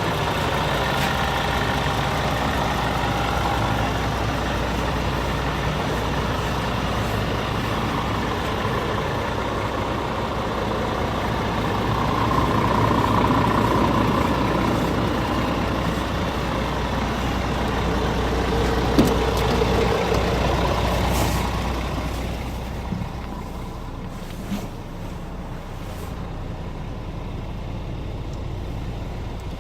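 Scania R450 truck's diesel engine running steadily, swelling somewhat in the middle and settling lower near the end, with a few short clicks over it.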